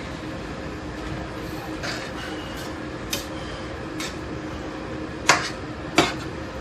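A spoon knocking and clinking against a pan of bolognese sauce as it is stirred: about five sharp knocks roughly a second apart, over a steady background hum.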